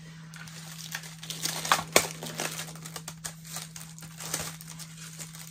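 Cardboard doll packaging rustling and crinkling as the doll is worked out of its coffin-shaped insert, with scattered sharp clicks. The loudest snap comes about two seconds in.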